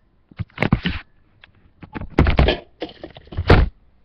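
A series of knocks and thumps, with the loudest clusters from about two to three and a half seconds in.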